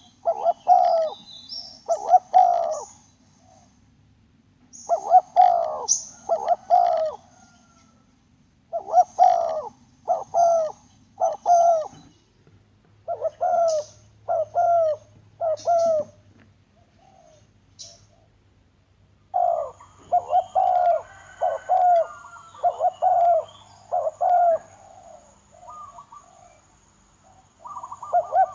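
Spotted dove cooing: short, low coos come in phrases of three or more, repeated with pauses of a second or two between them.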